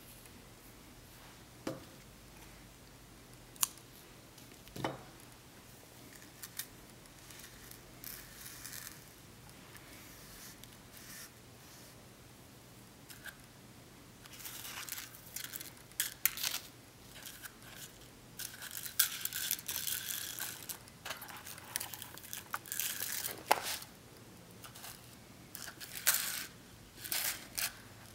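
Hand handling of beading supplies: a few soft clicks early, then from about halfway a long stretch of rustling and clicking as hanks of strung seed beads are lifted out of a plastic compartment box.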